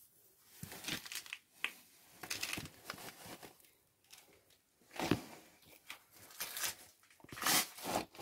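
Hands handling parts around an engine block: irregular bursts of rustling, crinkling and scraping, the loudest near the end.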